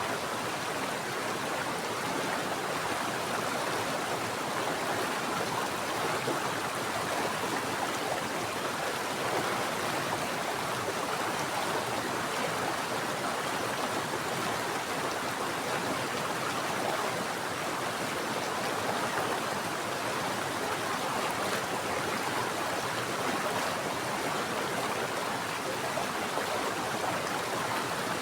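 Mountain stream water flowing, a steady, unbroken sound with no change.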